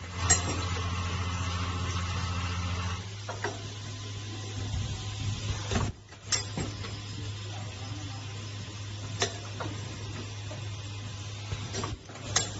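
Ultrasonic welding machine for breathing valves running with a steady mechanical hum for about three seconds, then stopping. Sharp clicks follow a few times, a few seconds apart.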